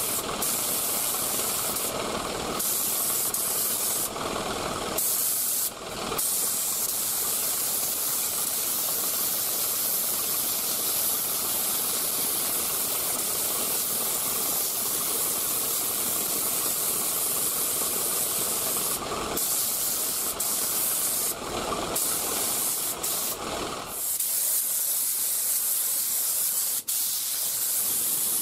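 HVLP spray gun, a 3M Performance Spray Gun with a 1.4 mm tip, hissing steadily as it atomizes single-stage urethane paint. The hiss breaks off briefly several times.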